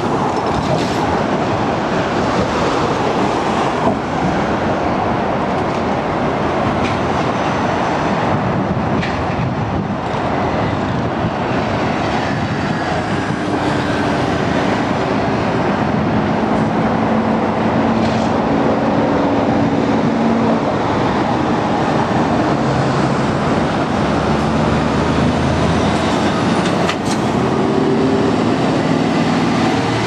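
Heavy road traffic passing close by: a steady wash of tyre and engine noise, with the engine hum of large vehicles such as trucks coming and going in the second half.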